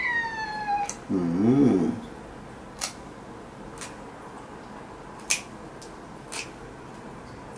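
A cat gives one meow that falls in pitch, then a short low wavering vocal sound follows. After that a pet nail clipper snips the cat's claws in about four sharp clicks, spaced a second or so apart.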